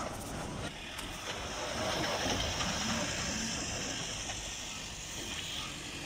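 Leyland tanker lorry's diesel engine running at low speed as the truck manoeuvres, a steady rumble with a hiss over it.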